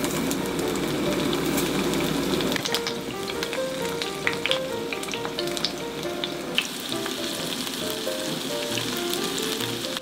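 Shrimp coated in potato starch frying in shallow oil in a frying pan: a steady sizzle with many scattered sharp pops and crackles.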